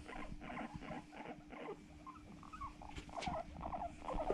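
Guinea pigs making soft, short squeaky calls in quick runs, getting denser and a little louder near the end.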